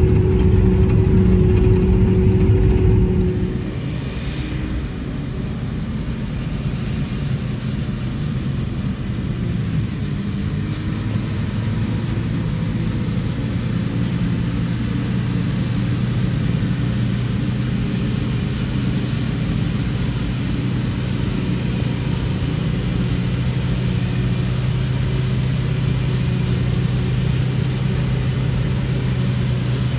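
Heavy diesel farm machinery running steadily. A strong engine hum drops away about three and a half seconds in, leaving a lower, steady drone that slowly builds.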